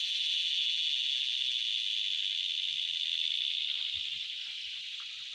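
Steady, high-pitched chorus of insects buzzing, easing off slightly near the end.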